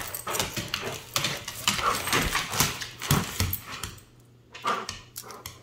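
Dog tugging on a plush toy on a hardwood floor: irregular scuffling and clicking with short dog noises, going quieter about four seconds in.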